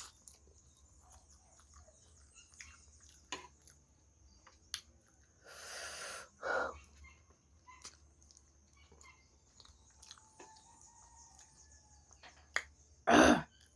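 Close-up eating sounds: soft chewing and scattered mouth clicks, with a breathy rush about six seconds in and a short, louder vocal sound near the end.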